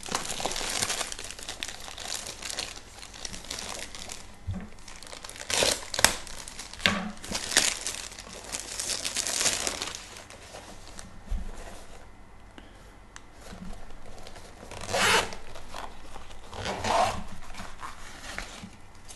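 Thin clear plastic bag crinkling and rustling as a small soft carrying case is pulled out of it, in repeated bursts over the first ten seconds, with a sharp click about six seconds in. After a quieter stretch come two shorter rustles as the case is handled.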